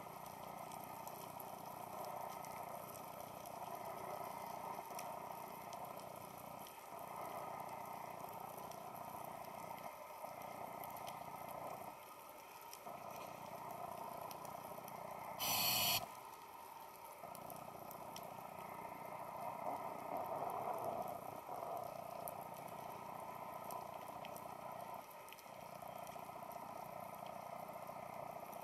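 Underwater ambient noise heard through a camera housing: a steady hiss, with one short, loud burst about halfway through.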